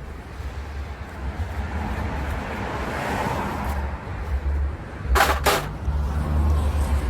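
Work sounds from undoing the alternator's brush-holder screws with a 7 mm Allen key: two sharp clicks about five seconds in, over a steady low rumble.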